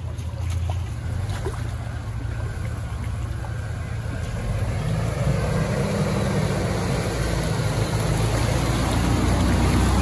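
Off-road vehicle's engine running with a low rumble, growing louder about halfway through.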